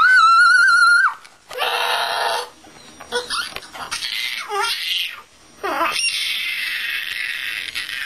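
A woman's voice shrieking and squawking in imitation of a crazed bird. It starts with a held high shriek for about a second, moves into raspy screeches and short sliding squeals, and ends with a long raspy screech over the last two seconds.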